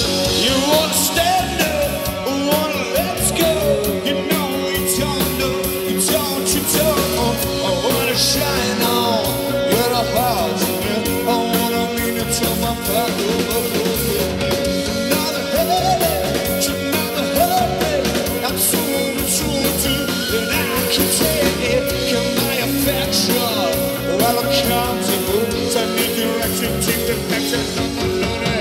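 Live rock band playing: electric guitars, bass guitar and drums, loud and continuous.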